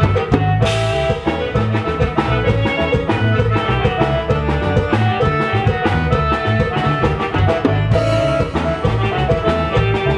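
Live Latin band music with no singing, played through a large PA: a drum kit keeps a steady beat under bass and melody instruments, with a cymbal crash shortly after the start and another near the end.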